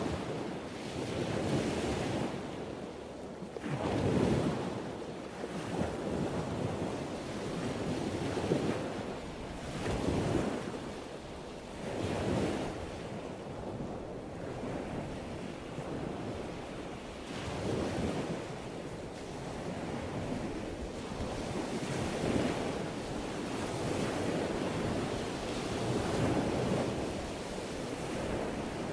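Ocean waves washing in, with a fresh surge every few seconds.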